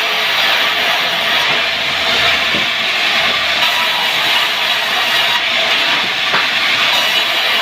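Powered wood saw running steadily: an even, unbroken noise with a constant tone under it.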